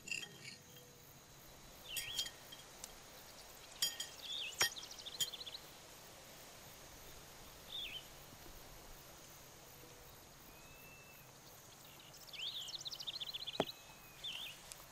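Birds chirping in short bursts of quick, high notes, about two seconds in, again around four to five seconds, briefly near eight seconds, and in a longer run near the end, over faint hiss; two light clicks.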